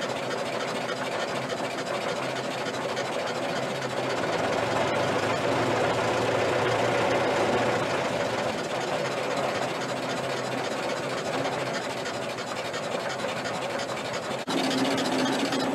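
Ford Model T four-cylinder side-valve engine running steadily at a fast idle, picking up speed a few seconds in and settling back. The engine has just had its ignition timing set with the original Ford roller timer, and it runs great.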